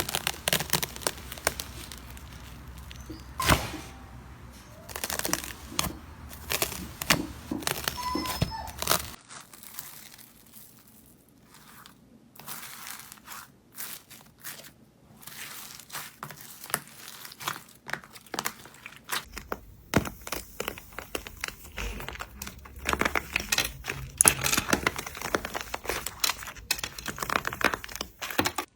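Slime being squeezed, poked and pressed by hand: a dense run of sticky crackling, crinkling and popping snaps.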